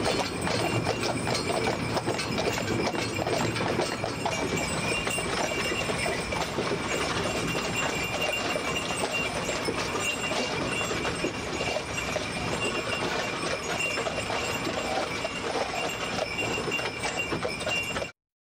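Team of draft horses clip-clopping at a walk as they pull a horse-drawn tram wagon, with the wagon rattling along behind them. The sound cuts off suddenly near the end.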